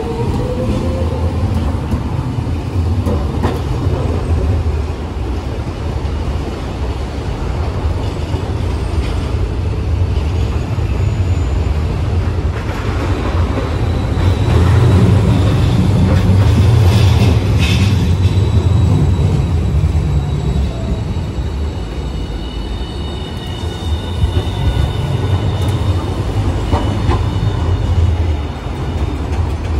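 Hiroshima Electric Railway low-floor streetcars running past on street track. There is a continuous low rumble that swells about halfway through, and thin high-pitched wheel squeal later on.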